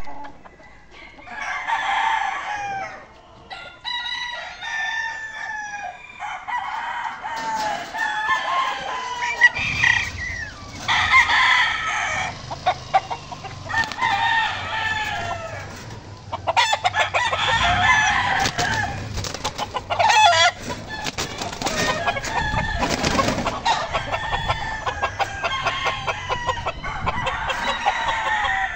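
Several gamecock roosters crowing repeatedly, one call after another, with clucking in between. Around the middle there is a burst of rapid clatter.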